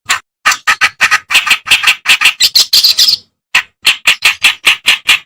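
Kerak basi (reed warbler) song starting abruptly: a loud, fast run of harsh, chattering notes, about five a second, with a brief pause a little after three seconds in before the notes resume.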